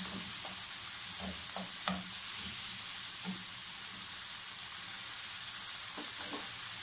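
Chopped tomatoes, onion, carrot and red pepper sizzling steadily in a frying pan while being stirred with a wooden spoon, which scrapes and knocks against the pan several times, mostly in the first two seconds and again near the end.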